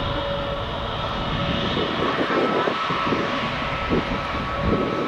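Airbus A321neo's twin turbofan engines running while the airliner taxis: a steady jet rumble with a constant whine from two fan tones.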